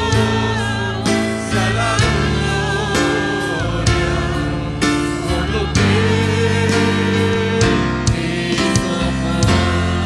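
Christian worship music: voices singing over instruments, with a steady beat about once a second.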